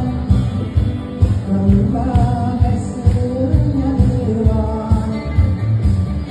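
A live band with drums and keyboard playing over a steady beat, while a man sings a melody into a microphone through the hall's PA.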